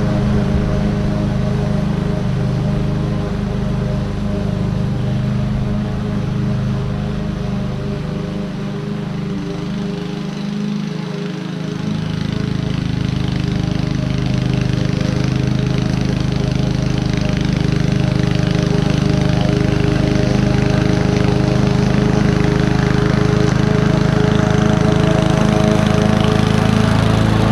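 Honda self-propelled walk-behind lawn mower's four-stroke engine running steadily under load while mulching grass. It grows a little quieter about a third of the way in as the mower moves away, then louder toward the end as it comes back.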